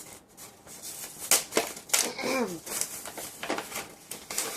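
Plastic blister packaging of a pack of ballpoint pens crackling and snapping in a string of sharp clicks as it is pried open by hand.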